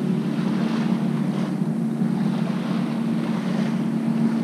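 Wind buffeting the microphone over shallow water lapping around the waders, with a steady low hum underneath and a few soft swishes of water.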